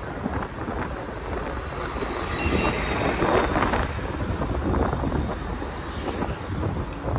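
Wind buffeting the microphone over the road rumble of an electric scooter riding along a city street, with traffic around. A brief high double tone sounds about two and a half seconds in.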